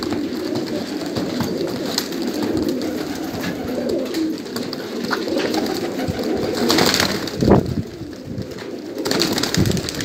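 A loft of domestic Manbij pigeons cooing, many low coos overlapping without a break, with a couple of sharp knocks about seven seconds in.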